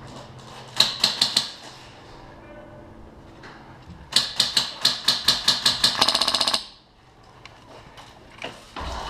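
Polarstar HPA-powered airsoft M4 firing: a quick string of about five shots about a second in, then a longer string of about ten shots from about four seconds that ends in a fast full-auto burst.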